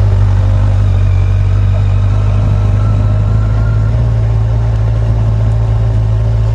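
Kawasaki Ninja 1000 motorcycle's inline-four engine running steadily as the bike rolls slowly along, a loud, even low hum.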